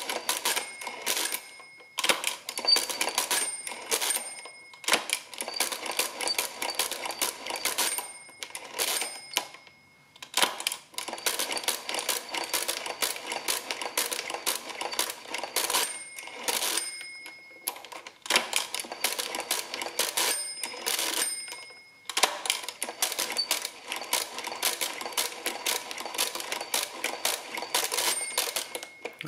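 Triumphator CRN2 pinwheel mechanical calculator being hand-cranked over and over through a long division, its gears clattering in rapid runs of clicks separated by short pauses. Its underflow bell rings several times, each ring a second or two long, marking where a subtraction has gone below zero.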